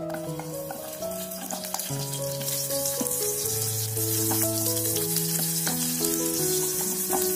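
Sliced shallots and garlic sizzling in hot oil in an electric pan, the sizzle starting as they drop in and growing louder a couple of seconds later, with a few clicks of a wooden spatula stirring them. Soft piano music plays over it.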